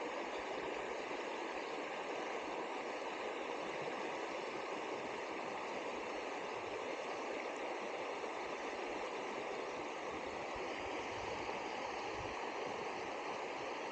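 River water flowing steadily past, a continuous even sound of running water with no break.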